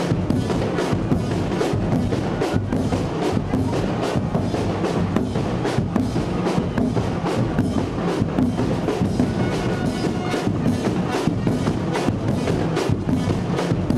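Carnival street band playing live: drums and hand percussion hammering out a fast, steady beat of several strokes a second, with brass over them.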